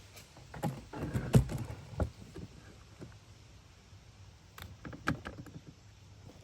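A run of knocks and thuds, the loudest about a second and a half in, then a second, lighter cluster of knocks about two-thirds of the way through.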